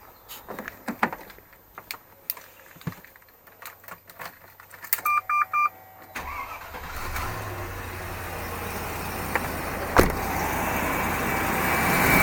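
Clicks and rustles of someone settling into a car, a quick run of electronic dashboard beeps, then the car's engine is cold-started at about six seconds and keeps running, its sound slowly growing louder. No tapping or knocking stands out from the engine.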